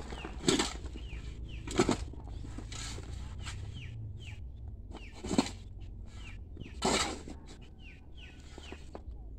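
A steel shovel scoops and scrapes through a soil mix of rice husk, charcoal and cow manure piled on corrugated metal sheeting. There are four sudden strokes, two in the first two seconds and two more about five and seven seconds in.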